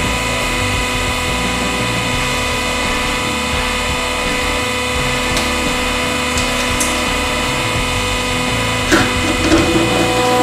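100-ton hydraulic press's pump running with a steady whine as the ram lowers and squeezes an apple. About nine seconds in there is a short sudden crack as the apple bursts under the ram.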